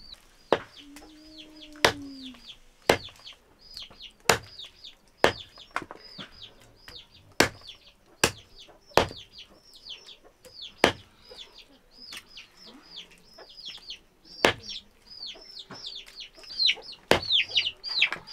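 A heavy knife chopping chicken pieces on a wooden log chopping block: sharp chops come roughly once a second with a few longer pauses. Small birds keep up short, high, falling cheeps throughout.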